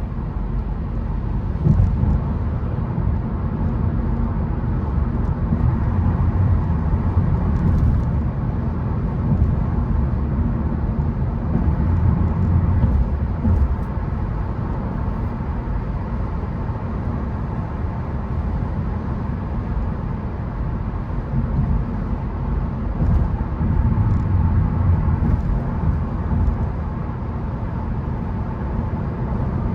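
Car driving on a rain-wet road: a steady low rumble of tyres and engine with a hiss of tyre and water noise above it.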